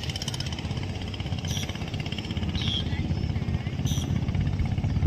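An engine runs steadily with a low, rapidly pulsing rumble, with a few short high chirps over it.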